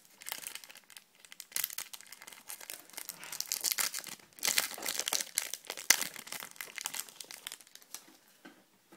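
Foil trading-card booster pack torn open and crinkled in the hands: a dense crackle, loudest in the middle, that dies away near the end.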